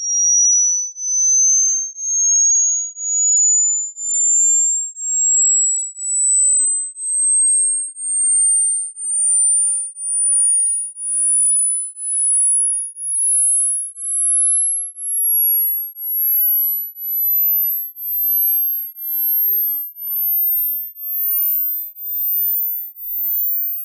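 Hearing-age test tones: a single pure, very high-pitched tone beeping about once a second and stepping higher in pitch with each beep, climbing toward the top of the hearing range. The point where a listener stops hearing the tones marks the age of their hearing.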